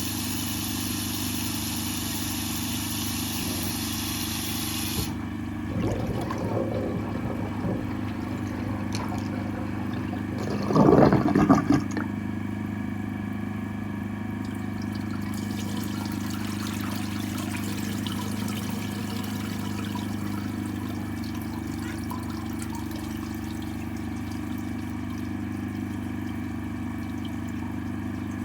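A high-pressure drain-cleaning jetter's engine running steadily, with water sounds. A short burst of louder noise comes about eleven seconds in.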